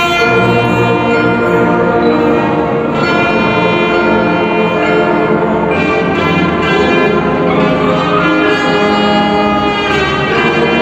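Marching band brass section playing long, sustained chords that change every few seconds.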